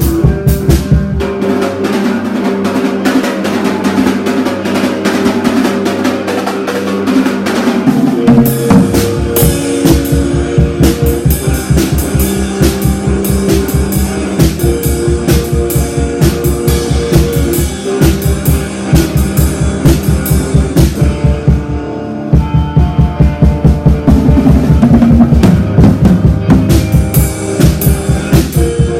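Rock music driven by a drum kit playing a fast, steady beat with bass drum and snare. The deep bass drops away for several seconds near the start, then comes back in.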